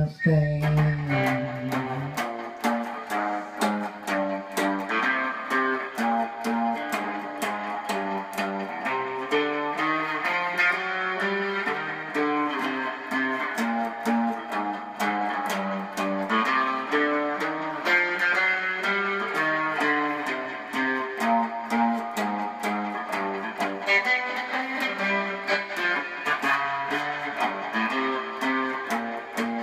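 Gretsch hollow-body electric guitar playing a rockabilly instrumental passage: a continuous run of picked notes with sharp attacks.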